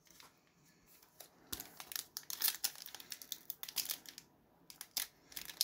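A foil trading card pack (2012 Panini Golden Age) being torn open by hand, the wrapper crinkling in a run of sharp, irregular crackles from about a second and a half in.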